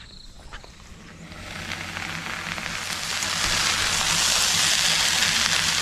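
Okra stir-fry with onion and coconut sizzling in a metal kadhai. The sizzle fades in over the first couple of seconds, then holds steady.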